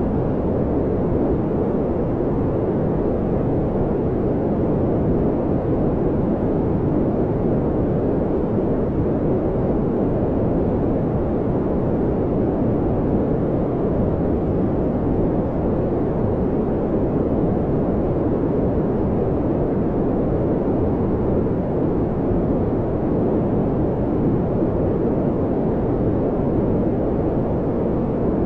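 Brown noise: a steady, deep rushing hiss that never changes, heaviest in the low range and dull at the top.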